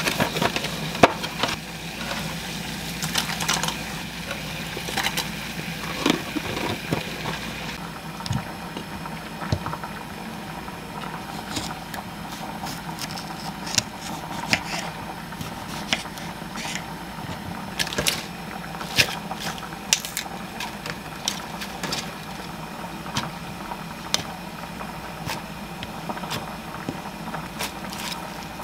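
Kitchen food-prep sounds over a steady low hum. First a cardboard pasta box and its paper inner bag are opened with rustling and crinkling. After that a knife cuts cherry tomatoes on a wooden board, making a series of short sharp clicks and knocks, and near the end lettuce leaves are handled into a wooden bowl.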